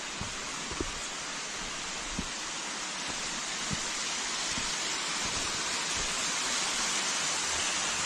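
Rushing water of Clematis Falls, a steady hiss that grows slowly louder, with a few faint ticks.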